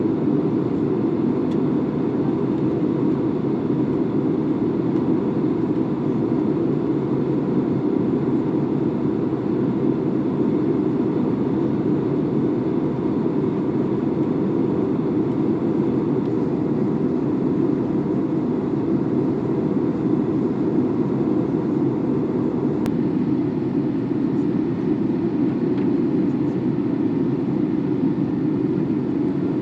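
Steady in-flight cabin noise of an Airbus A321neo airliner on approach: an even rush of airflow and engine noise, with a faint constant hum above it.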